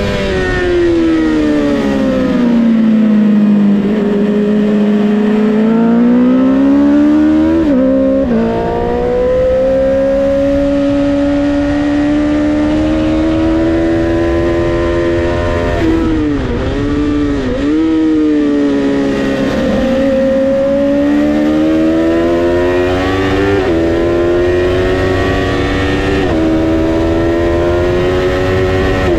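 Honda CBR650R inline-four engine heard from on the bike with wind rush. The revs fall over the first few seconds as it slows, then climb with short dips at the gear changes. Around the middle the revs drop and recover twice, then it pulls up through the gears again, with shift breaks near the end.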